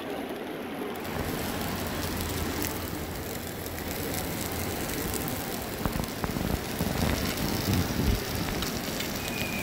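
Steak sizzling on a hot plate: a steady hiss with scattered crackles and pops, growing louder about a second in.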